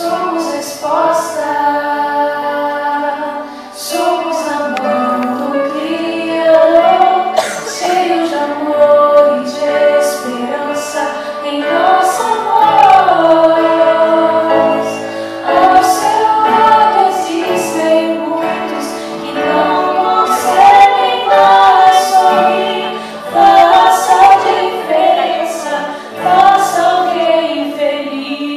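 A small group of students singing a song in Portuguese into handheld microphones, with women's voices leading the melody.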